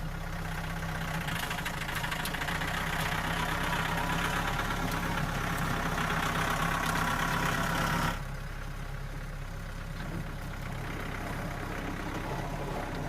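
A vehicle engine running steadily. Extra mechanical noise builds over the first eight seconds, then cuts off sharply, leaving the engine's low hum.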